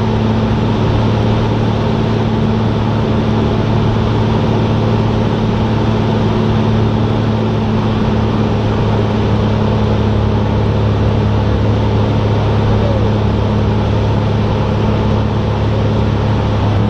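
Cessna 172's piston engine and propeller droning steadily in flight, a constant low hum that holds the same pitch throughout.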